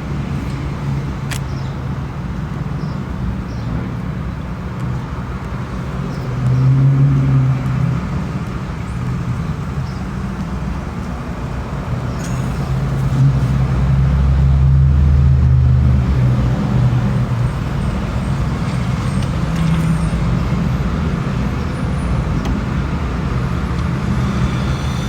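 Steady car and road noise, a low rumble that swells for a few seconds around the middle.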